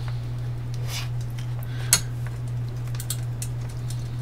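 Small metal screws, nuts and washers clicking and clinking as they are handled and fitted to a motor mount on a metal chassis, with one sharper click about two seconds in and a few quick ones near three seconds. A steady low hum sits underneath.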